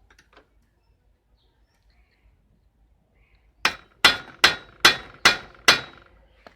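Six ringing metal hammer blows, evenly spaced a little under half a second apart, starting about halfway through: hammering to loosen a tight, stuck bicycle pedal.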